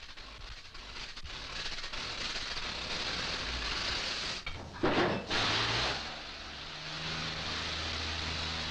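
Rock-loading machinery in a tunnel heading: a mucking loader shovelling blasted rock into a car, a noisy clatter that builds over the first few seconds. There is a loud short crash about five seconds in, and after it a low steady hum under the noise.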